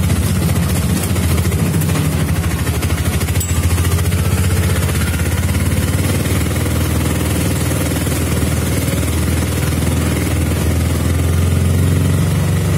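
Vehicle engine running steadily under way with a low, even drone, heard from on board.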